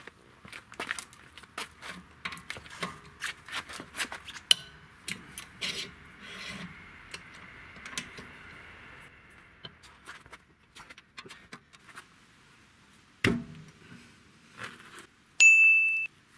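Metallic clicking and clinking of a wrench on the wheel bolts as a car's rear wheel is taken off, with a single sharp knock late on and a short, loud, high-pitched beep near the end.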